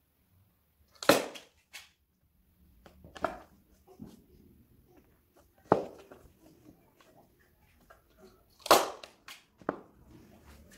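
Hand staple gun firing, five sharp snaps at uneven intervals, the loudest about a second in and near the end, with quiet rustling of fabric between.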